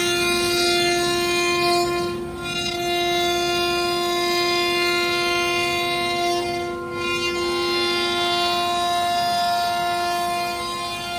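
CNC router spindle running at high speed with a steady whine, routing the profile into cabinet door panels. Brief dips in the upper hiss about two and seven seconds in.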